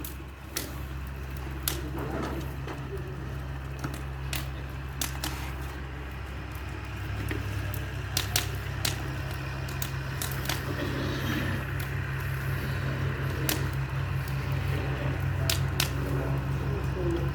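A vehicle's engine running with a steady low drone that grows slightly louder toward the end, with scattered sharp clicks and ticks over it.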